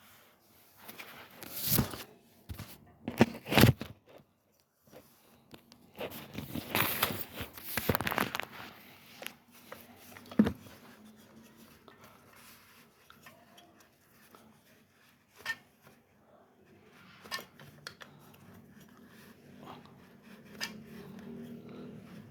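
Irregular rustling, scraping and crinkling handling noises as a sneaker's air sole is worked on while it is being filled. The loudest scrapes come in the first half, with a sharp knock about ten seconds in, then quieter scuffs.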